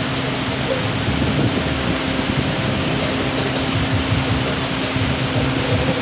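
Small boat's motor running steadily, a constant hum under a loud rushing noise from moving through the air and water.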